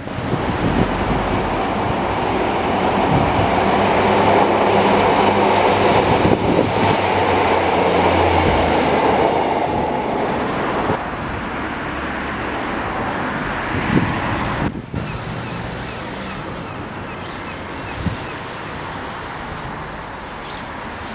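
Diesel train passing close by: a steady low engine note under a wash of running noise that builds to a peak a few seconds in, then fades away over the next several seconds.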